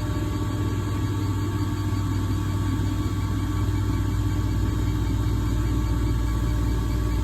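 A machine running with a steady hum: a strong low drone with a few thin, even tones above it, unchanging throughout.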